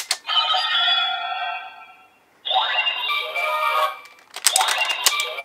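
DX Ultraman Arc transformation toy, with the Blazar Cube loaded, playing its electronic transformation sound effects and music through its small speaker, with a short break about two seconds in. Sharp plastic clicks come at the start and again about four and a half seconds in as the device is closed and opened.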